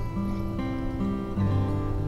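Background music: an acoustic guitar playing a plucked melody, its notes changing about every half second.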